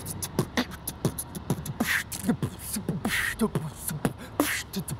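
A man beatboxing: a quick run of sharp mouth clicks and hissing snare-like bursts over deep thuds that drop in pitch.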